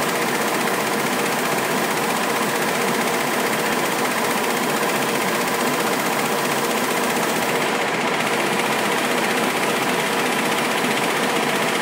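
2007 Nilpeter Rotolabel MO-3300 offset label printing press running at a steady speed, its printed label web feeding over the rollers. It makes an even mechanical running noise with several steady tones in it.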